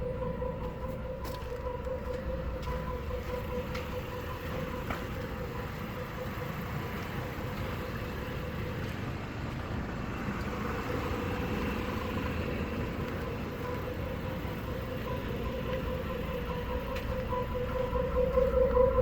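Exhaust of a 1986 Chevrolet El Camino's 4.3-litre V6 running, with a low rumble and a steady moaning tone from the tailpipe that fades somewhat midway and swells louder near the end. The owner cannot identify the cause of this tailpipe noise.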